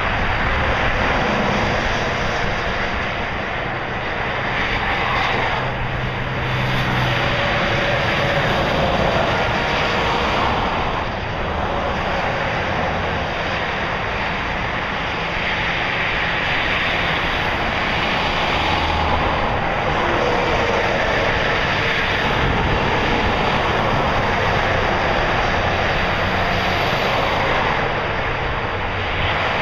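Steady roar of motor traffic, an even rushing drone that swells and eases slowly in level.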